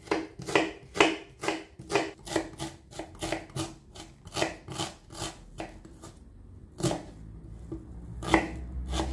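Kitchen knife chopping onions finely: quick, even strokes about three a second, with a short pause about six seconds in before the chopping picks up again.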